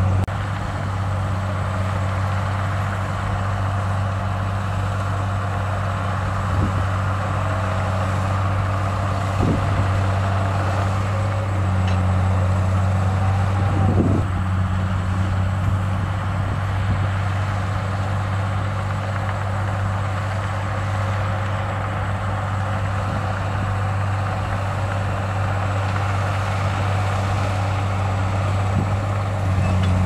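Komatsu bulldozer's diesel engine running steadily with a deep, even drone, and a thin whine that rises and falls briefly about halfway through.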